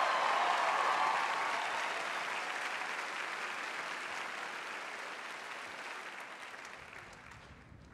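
Large theatre audience applauding, loudest at first and dying away gradually over several seconds.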